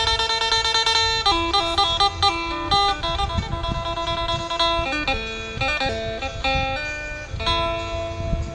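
Phin, the plucked Isan lute, playing a lively melody of quick plucked notes over a steady drone note.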